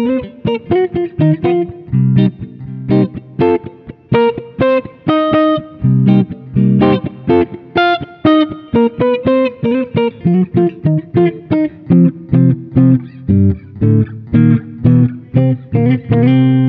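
Tokai ALS62 GT Les Paul-style electric guitar with two humbucking pickups, played with the fingers in a warm, jazzy tone: a steady run of plucked single notes and chords, each note ringing and then fading.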